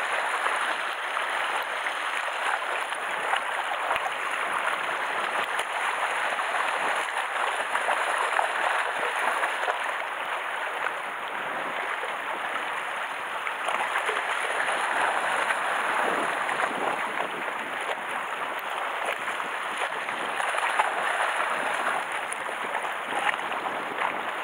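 Small sea waves washing and lapping against a rocky shore: a steady rushing, splashing wash.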